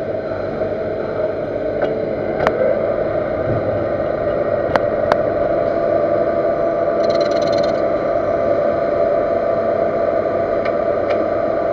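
Metal lathe turning a workpiece: the machine runs steadily with the cutting tool on the metal, giving a constant hum with a steady ringing tone. A few sharp ticks sound along the way, and it grows slightly louder over time.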